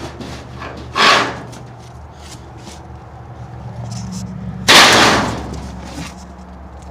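Two loud, sharp knocks, about a second in and just before five seconds, as the hive is struck to test whether it is occupied.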